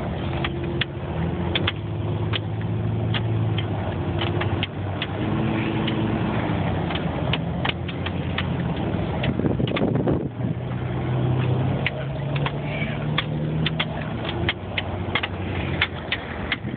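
Off-road vehicle's engine running as it drives over sand dunes, heard from inside the cab, its pitch shifting a few times. Frequent sharp rattles and knocks from the vehicle bouncing over the terrain.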